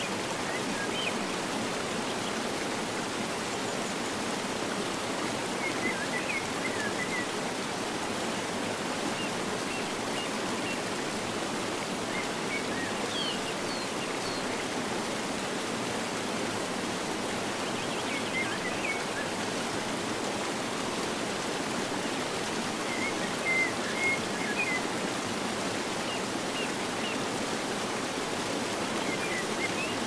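Mountain river cascades rushing steadily, with a small bird's short chirps and twitters breaking through now and then, strongest about three-quarters of the way in.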